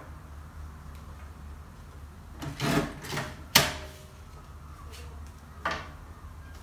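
Sheets of paper being handled and squared up on a desk: a few short rustles and a sharp knock about three and a half seconds in, over a low steady hum.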